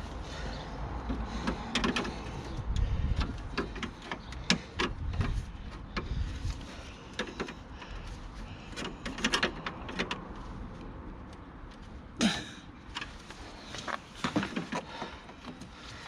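Irregular clicks, knocks and scraping of plastic as a damaged BMW E36 kidney grille is prised out of the nose panel with a screwdriver, with a longer, louder scrape about twelve seconds in.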